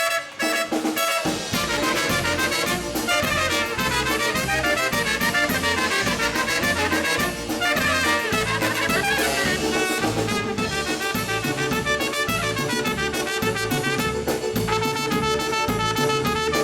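Brass band playing an instrumental break without vocals, with a long held note through the second half.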